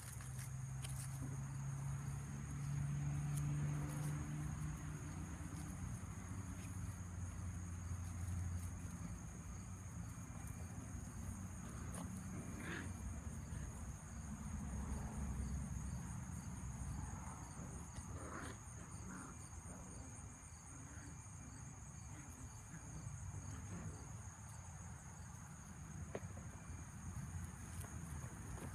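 Insects chirring steadily: a high, unbroken drone with a fast even pulse. A low steady hum sits underneath, and a few brief sharp sounds stand out, once about 13 seconds in and again around 18 seconds.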